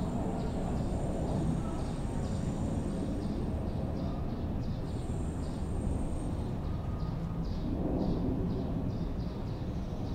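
Residential street ambience: a steady low rumble of distant traffic, with short high chirps repeating a few times a second. A thin high whine sounds twice, from about half a second to four seconds in and again around five to seven seconds.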